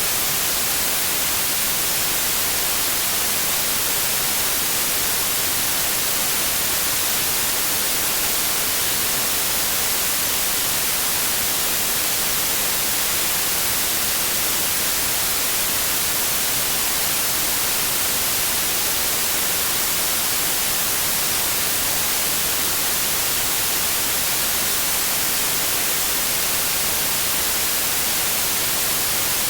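Steady white noise: an even, unchanging hiss across the whole range of pitch, with no breaks or changes.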